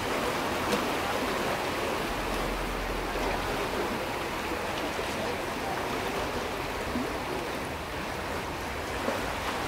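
Sea water washing against a rocky shore, a steady rushing noise.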